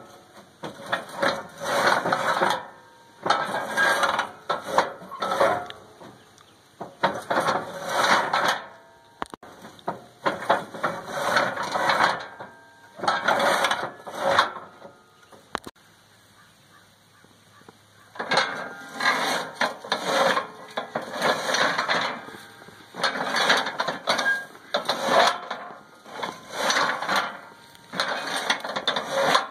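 Steel cattle head gate being worked by its top lever, the panels and latch clanking and rattling in repeated irregular bursts, with a pause of a couple of seconds about halfway through.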